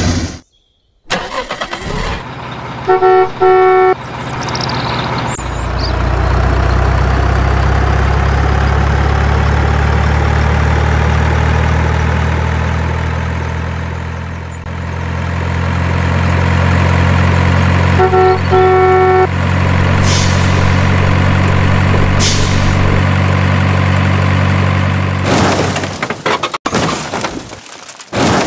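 Dubbed truck sound effects: a heavy engine running low and steady, broken twice by a short run of air-horn honks, a few seconds in and again about two-thirds of the way through. Near the end a loud, noisy crash takes over.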